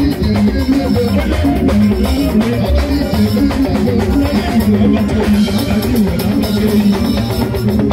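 Live band music: electric guitar playing over drums, continuous and loud.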